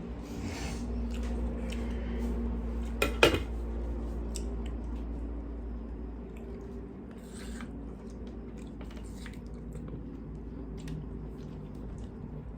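Tableware clinking during a meal: scattered small clicks of cutlery and dishes, with one loud, sharp ringing clink about three seconds in, over a low steady hum.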